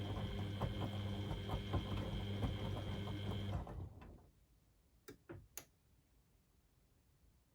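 Beko WMD 46160 washing machine running, a steady electrical hum with light rattling and knocking, which stops suddenly about three and a half seconds in; a few seconds later come three short clicks.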